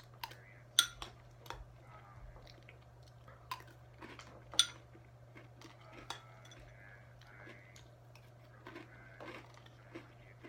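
Metal spoon clinking against a cereal bowl with scattered sharp clinks, the loudest about a second in and again a little before the middle.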